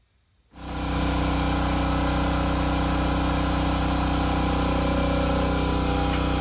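A motor or engine starts abruptly about half a second in and then runs at a steady, unchanging speed with a loud hum.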